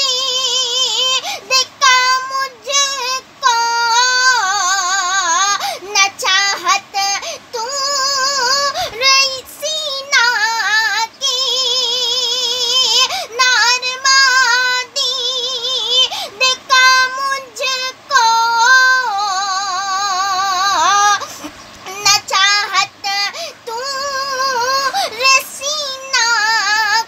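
A woman singing an Urdu ghazal in long, high, ornamented phrases with a strong vibrato, with short breaks between phrases.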